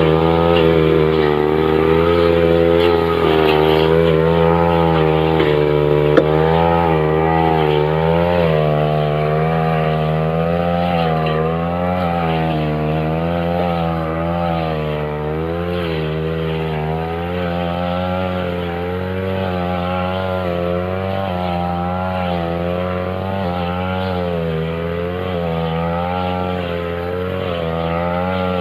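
Backpack two-stroke brush cutter with a metal blade running at high revs while cutting grass, its engine pitch wavering up and down with each side-to-side sweep as the blade takes load and frees up.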